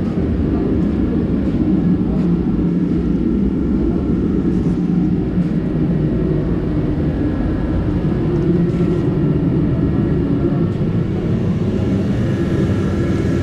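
Forced-air torpedo heater running with a steady, unbroken roar, its burner and fan sound low and even.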